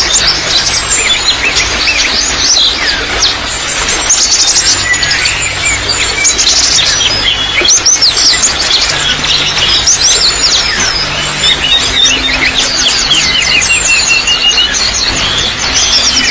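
Many small birds chirping and trilling at once, with quick repeated notes and short whistles, over a steady trickle of running water.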